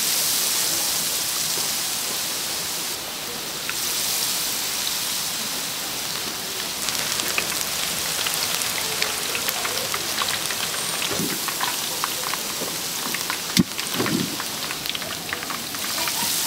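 Handmade battered fritters deep-frying in hot oil: a steady, rain-like sizzle full of small crackles, with a single sharp knock near the end.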